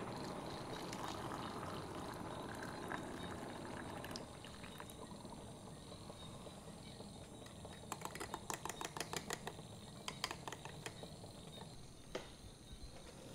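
Coffee poured into a drinking glass, then a metal spoon clinking quickly against the glass as the coffee is stirred, a quick run of clicks about eight seconds in.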